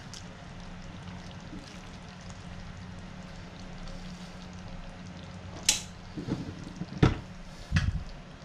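Wooden spatula stirring thick beef kurma stew in a coated frying pan, with a soft steady simmer underneath. In the last few seconds there are about four sharp knocks and clatters of wood on the pan.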